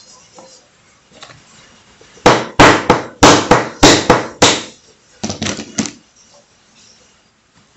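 Hammer striking a steel punch held in pliers against a brass Yale padlock clamped in a vise, driving out the padlock's rusted internal pin. About seven hard metallic blows in quick succession, then three lighter taps.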